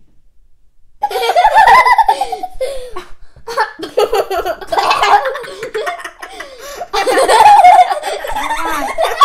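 Kids laughing loudly in long bouts of giggling, starting about a second in.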